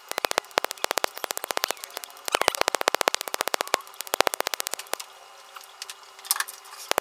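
Black Doll carbon laser peel handpiece firing rapid pulses against the face, each pulse a sharp snap, about ten a second in runs with brief pauses.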